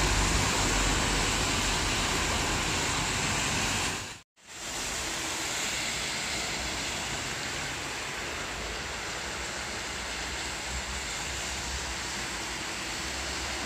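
Steady rain and the hiss of traffic on a wet road. The sound cuts out for a moment about four seconds in, then the rain and road noise carry on a little quieter.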